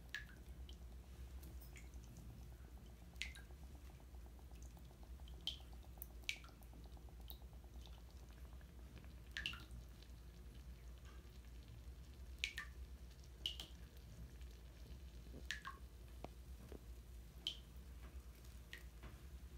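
Faint, scattered drip-like plinks of water in a bathtub, irregularly about once a second, over a low steady hum.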